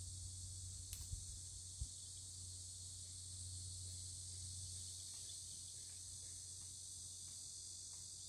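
A steady, faint high chorus of insects. Under it runs a low steady hum. A few soft knocks in the first two seconds and faint light clicks later come from green onions being peeled and trimmed by hand with a small knife.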